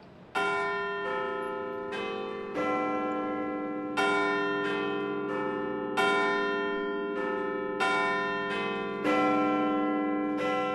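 Clock-tower bells chiming the hour at eleven o'clock: a sequence of strikes on bells of several different pitches, about three every two seconds, each ringing on into the next.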